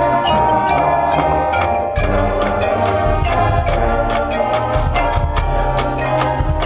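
Marching band playing, with mallet percussion (marimba, xylophone, glockenspiel, chimes) striking quick notes over sustained brass and a low bass.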